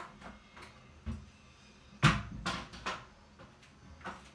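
A stepladder being shifted and turned around: a run of knocks and clatters, with the loudest thump about two seconds in, followed by a quick rattle of smaller knocks.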